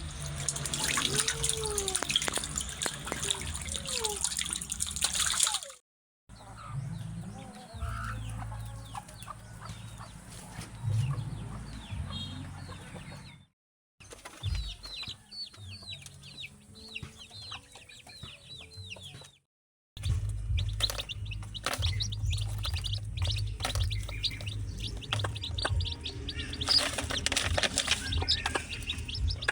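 Chickens clucking and birds chirping, with a low rumble underneath. The sound cuts out briefly three times.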